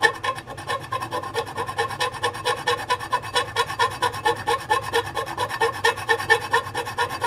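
Knife tip scraping the inside of an aluminium frying pan in rapid, even back-and-forth strokes, about five a second, with a steady ringing tone from the pan under the scraping. The scraping is to get a small spot off the pan's surface.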